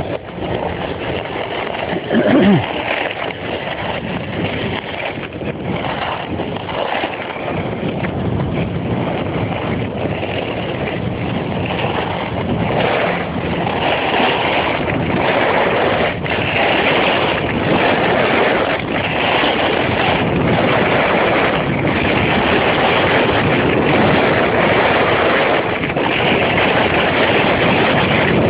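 Skiboards (short snowblades) sliding and scraping over packed snow, with wind rushing over the microphone. The scraping swells and fades about once a second and grows louder in the second half; a short, louder sound with a falling tone comes about two seconds in.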